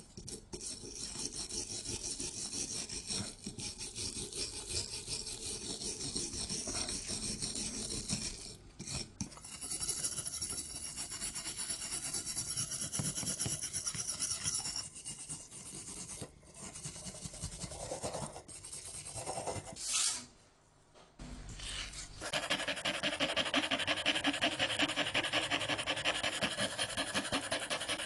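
Rapid rasping and scraping strokes of abrasive work on a surface, in several clips joined by abrupt cuts. The rasping becomes louder and brighter for the last quarter.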